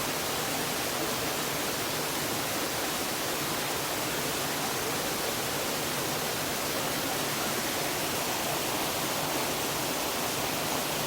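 Waterfall: water falling in a steady, even rush that does not change.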